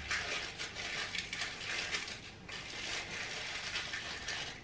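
Tissue paper crinkling and rustling in someone's hands as a small gift is unwrapped, a dense run of crackles with a brief lull about two and a half seconds in.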